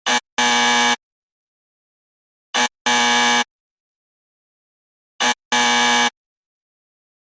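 Wrong-answer buzzer sound effect: a short buzz followed at once by a longer one, 'eh-ehhh', repeated three times about two and a half seconds apart.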